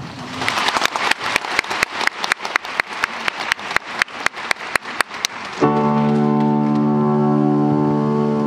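Audience applause, with sharp individual claps standing out, for about five and a half seconds. Then a keyboard comes in with a loud held chord, the intro of a pop ballad.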